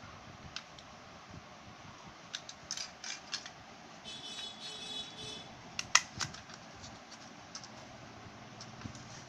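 Plastic clicks and taps from handling a small rechargeable USB fan's casing and battery compartment cover, with a short rasping scrape about four seconds in and the loudest sharp click near six seconds.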